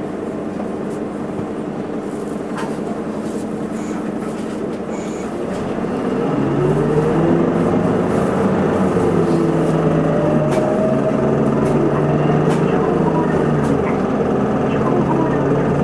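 Isuzu Erga city bus heard from inside the cabin: the diesel engine idles steadily, then about six seconds in revs up as the bus pulls away, its pitch rising, falling back and rising again through the gears.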